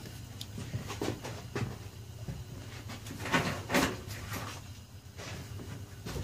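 Workshop handling noises: a few soft knocks and rustles, with a louder pair of knocks about three and a half seconds in, over a steady low hum.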